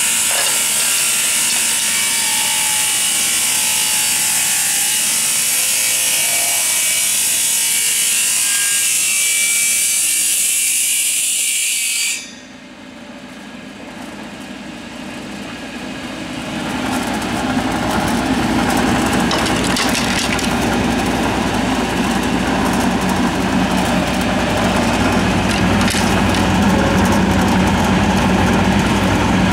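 WFP-1 wood dissection machine slicing a plank into strips, a loud steady hiss of cutting that stops abruptly about twelve seconds in. A lower machine hum then rises over a few seconds and runs steady.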